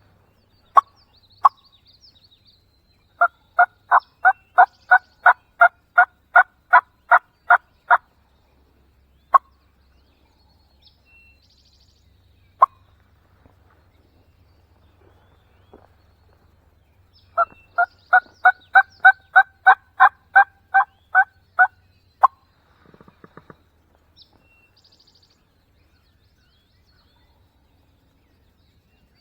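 Turkey yelping: two long runs of evenly spaced, loud yelps, about three a second, with single short notes between the runs.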